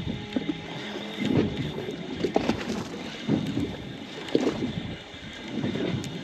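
Sea water sloshing and lapping against the side of a boat in swells about once a second, with wind on the microphone.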